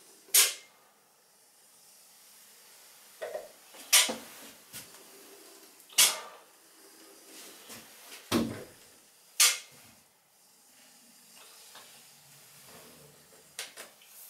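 Caulking gun clicking as its trigger is squeezed to push out silicone sealant: five loud, sharp clicks a second or two apart, with a few fainter ticks between.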